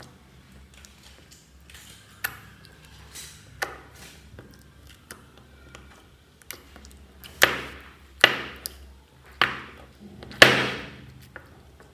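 Thick white slime being kneaded and folded by hand, making soft sticky clicks and then four louder squelching pops in the second half as it is pulled and pressed.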